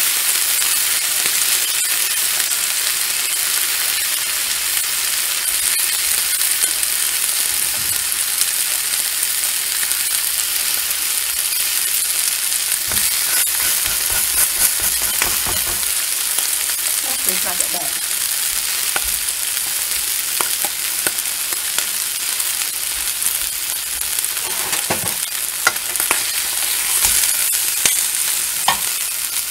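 A cheeseburger sizzling steadily in a nonstick frying pan as it is reheated. A few light clicks and soft knocks come from food being handled in the pan, mostly in the second half.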